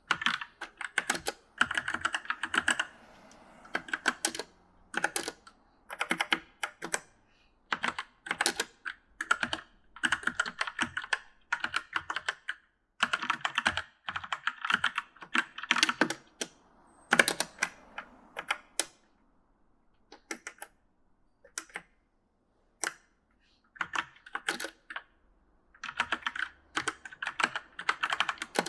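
Typing on a mechanical gaming keyboard: rapid clattering key clicks in irregular bursts, broken by short pauses and a few seconds of only scattered keystrokes about two-thirds of the way in.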